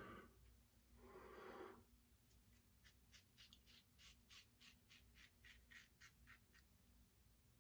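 Parker 24C open-comb safety razor with a Feather blade scraping through lathered stubble on the upper lip. It goes in short, quick strokes, about three a second, starting a couple of seconds in, after two soft whooshes at the start.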